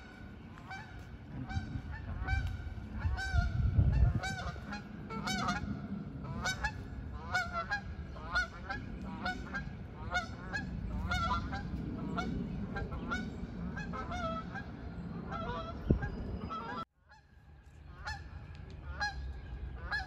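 Geese honking over and over in short, repeated calls, several overlapping, over a low rumble. The calls break off for about a second near the end, then start again.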